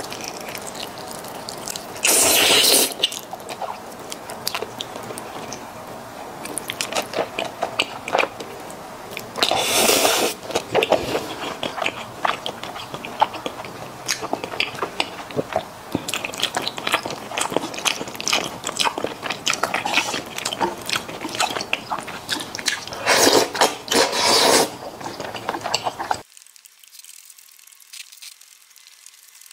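Close-miked wet chewing and lip-smacking of sauce-glazed eel and rice noodles: a fast run of small sticky clicks, with three louder stretches about a second long. Near the end the sound drops to faint.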